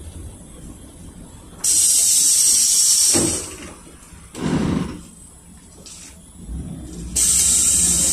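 Two sharp hisses of compressed air from the PAZ-32054 bus's pneumatic system, each about a second and a half long, with a shorter thump between them. A low engine rumble rises under the second hiss.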